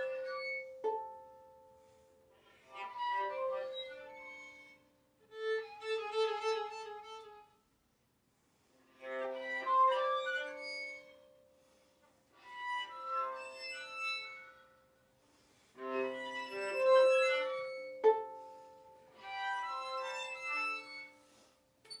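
Violin and viola duo playing contemporary chamber music in short, separate phrases of a few seconds each, about six of them, divided by near-silent pauses. A couple of the phrases begin with a sharp attack.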